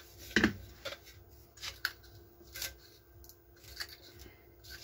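Short paper crinkles and small clicks as a loudspeaker's voice coil and its paper shims are handled and pressed into the magnet gap, with a sharper click about half a second in.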